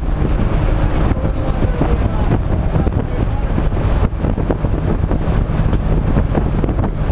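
Race car engine running hard under load, heard from inside the stripped cabin with wind noise on the microphone. The sound dips briefly about four seconds in.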